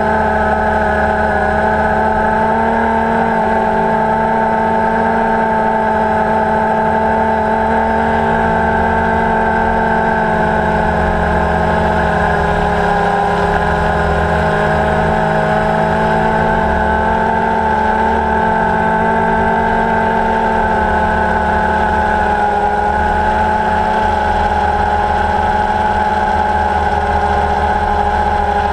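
Quadcopter drone's electric motors and propellers whirring steadily, a droning hum of several held pitches that waver only slightly.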